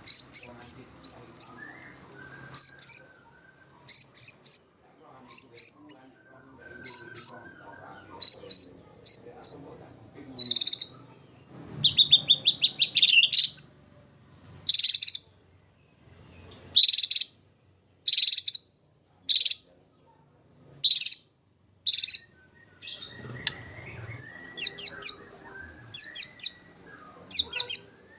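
White-rumped shama (murai batu) singing its varied song of mimicked phrases: a long run of short, sharp, whistled notes repeated in quick groups, with a fast buzzy rattling trill about twelve seconds in and again near the middle.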